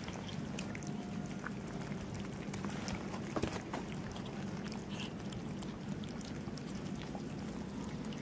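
Several cats eating wet cat food from plastic tubs: scattered small, wet chewing and lapping clicks over a steady low hum.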